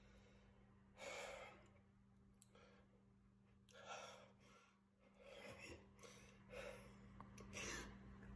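Faint breathing from a man sipping a strong spirit from a shot glass: a series of short exhales and sighs, roughly one every second or so.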